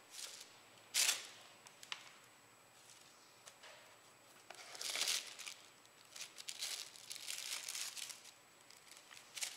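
Paper napkins being pulled one after another from a plastic napkin dispenser and handled, in irregular bursts of papery rustling and crinkling, the sharpest about a second in and a busier run of rustles in the second half.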